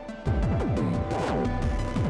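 Electronic background music with a heavy bass beat and repeating falling synth sweeps, starting loudly about a quarter of a second in.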